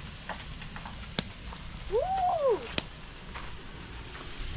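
Crackle and sizzle from a wood campfire and ribeye steaks on a charcoal grill, with sharp pops about a second in and again near three seconds. A voice is heard briefly at about two seconds.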